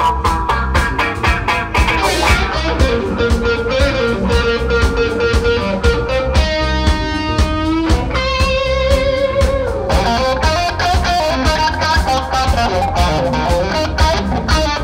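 Live blues band playing: electric guitar lead over bass guitar and drums keeping a steady beat, with two long held guitar notes around the middle, the second bent up into pitch.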